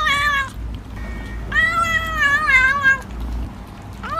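Kitten meowing while licking at a feeding tube: a short call that trails off about half a second in, then a longer, wavering meow lasting about a second and a half.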